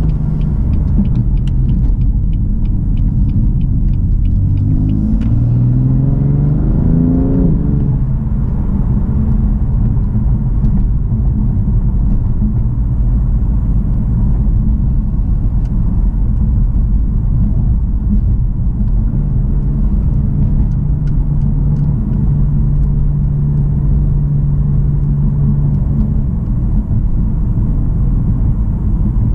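BMW F80 M3's twin-turbo inline-six accelerating, its pitch rising for a few seconds and then dropping suddenly at an upshift, before settling into a steady cruise with low road rumble.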